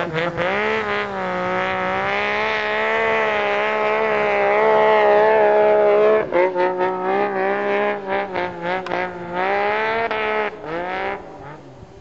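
Snowmobile engine running hard at high revs, its pitch held fairly steady for several seconds, then rising and falling with repeated throttle changes before dropping away near the end.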